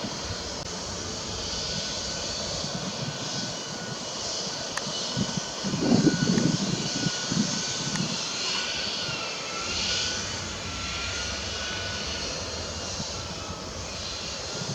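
Steady engine drone with a high whine that wavers slightly in pitch, and low rumbles about halfway through like wind buffeting the microphone.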